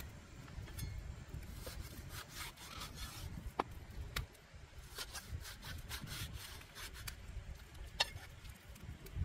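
A large knife sawing and scraping through a slab of raw meat on a chopping board in repeated strokes, with two sharp taps of the blade hitting the board.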